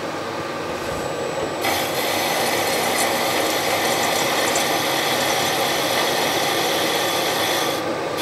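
Milling machine with an end mill cutting down the top of a valve guide in an aluminium Porsche 911 cylinder head. The spindle runs steadily, and a harsher, higher cutting sound joins it from about a second and a half in, easing off shortly before the end.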